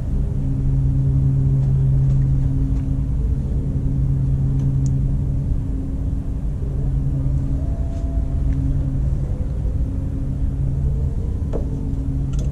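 A steady low hum of a running motor, with a few faint clicks.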